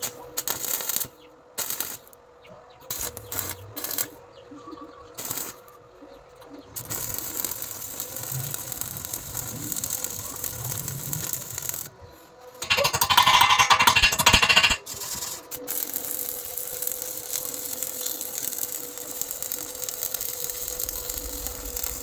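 Electric arc welding: the arc is struck in a series of short on-off bursts, then runs as a steady crackling hiss while a bead is laid. A louder burst lasts about two seconds near the middle.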